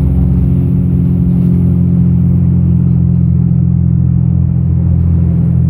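Dodge Ram's Cummins turbo-diesel engine and road noise heard from inside the cab while driving at steady speed: a constant low drone.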